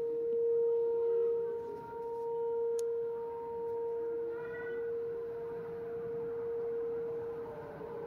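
Federal Signal 2001-130 rotating electromechanical outdoor warning siren sounding a steady alert tone, its level slowly swelling and dipping as the horn turns. Other sirens wail faintly in the distance underneath.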